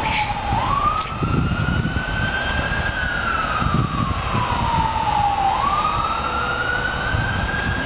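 Emergency vehicle siren on a slow wail, its pitch rising and falling smoothly, each rise or fall taking about two and a half seconds, over a low rumble.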